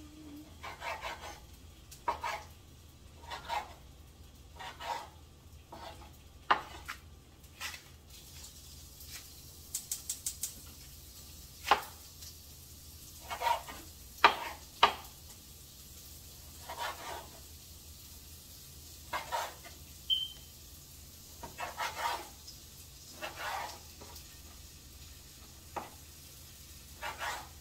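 Kitchen knife cutting raw chicken thighs on a wooden cutting board: irregular short knocks of the blade against the board, about one every second or two, the loudest near the middle.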